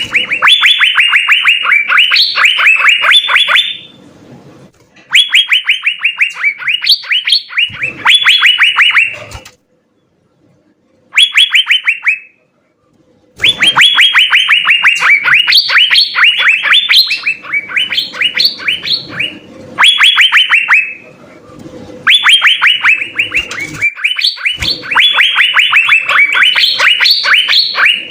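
Asian fairy-bluebird (cucak biru) singing loudly: phrases of rapid, sharp repeated notes, about seven a second, each phrase lasting one to four seconds with short pauses between.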